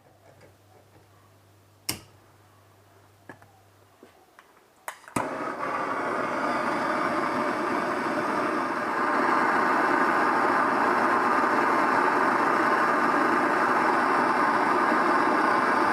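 A few light clicks, then a click about five seconds in as a heating tool is switched on, running with a steady rushing noise that gets louder at about nine seconds and holds; it is heating a plastic knob so it can be pulled off a bolt.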